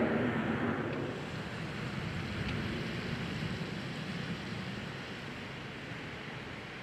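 Freight train cars rolling past on the tracks, a steady rumbling noise that eases over the first couple of seconds and then holds.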